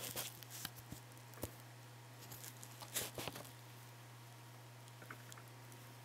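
Faint rustling and scuffing of cloth blankets as a baby capybara shifts and paws about on them: a few short rustles and taps, the busiest about three seconds in, over a steady low hum.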